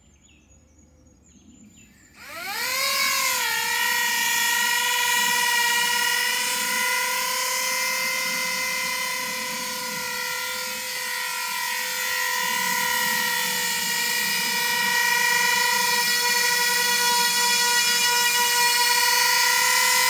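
Electric motors and counter-rotating rotors of a home-built coaxial copter spinning up about two seconds in: the pitch rises quickly, overshoots a little, then settles into a steady whine with a stack of overtones that holds on.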